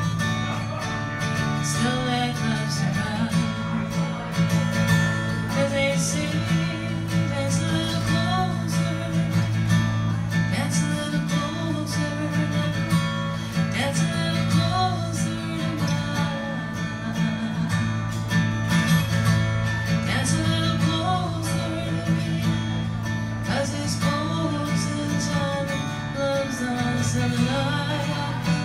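A woman singing to her own strummed acoustic guitar, a solo folk-country song.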